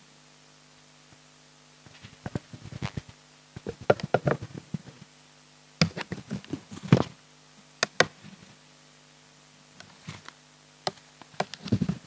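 Papers and a book being handled on a lectern: irregular taps, knocks and rustles, starting about two seconds in.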